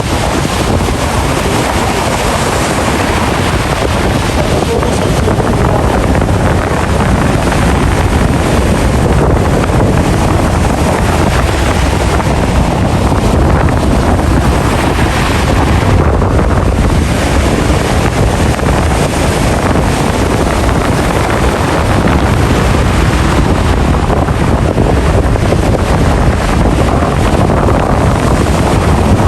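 Ocean waves and rushing water under heavy wind noise on the microphone, a loud, steady rush with no breaks.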